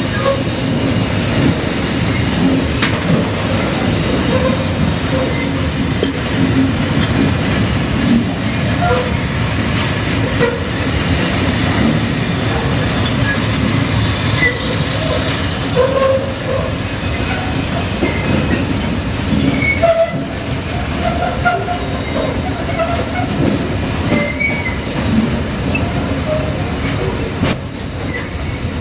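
Railion covered hopper freight wagons rolling past, with a steady rumble of steel wheels on rail. Frequent short wheel squeaks and occasional clicks rise over the rumble.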